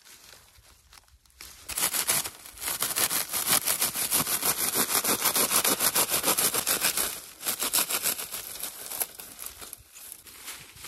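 A hand blade cutting through a bundle of dry reeds laid on a log: a fast, rasping scrape. It starts about a second and a half in, breaks off briefly near the seventh second, then dies away about a second before the end.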